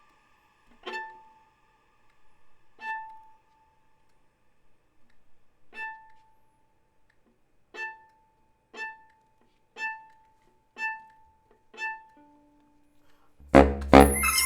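Viola playing single short high notes on one pitch, sparse at first, then about one a second, each dying away quickly. About a second before the end a loud, dense passage with deep low notes breaks in, with the baritone saxophone joining.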